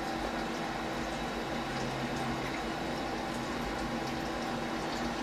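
Steady hum and hiss from the idling CNC milling machine, with a few constant tones over an even rush.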